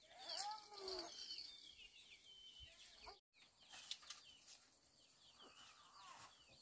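Chickens clucking faintly, with one longer call in the first second over scattered high chirps. The sound drops out briefly just past the middle.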